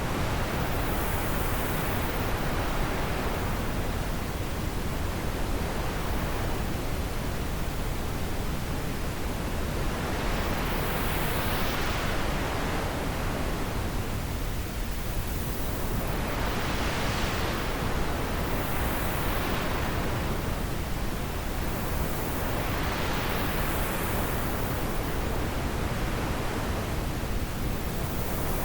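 Wind blowing as a steady rushing noise, with gusts every few seconds that swell into a higher hiss and die away again.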